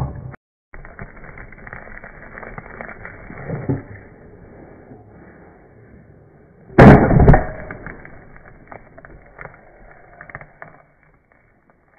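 A kick scooter crashing onto hard ground with one loud clattering impact about seven seconds in, which rings on for about a second; before and after it, faint scuffing noise.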